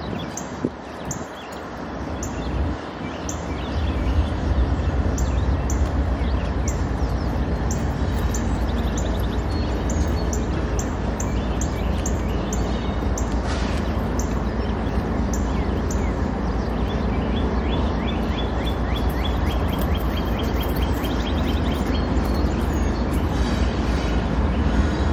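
A loaded freight train rolling past: a steady rumble of cars on the rails that builds over the first few seconds and then holds, with many short high ticks over it.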